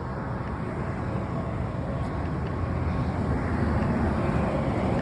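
Traffic passing on a wet road: a steady rumble of tyres and engines that grows louder as a vehicle approaches toward the end.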